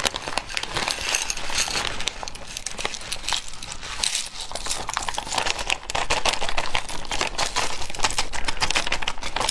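Clear plastic bag crinkling and rustling as it is handled and tipped, with many small clicks and clatters as a bagful of snails in their shells, in a spicy sauce, spills out onto a plate.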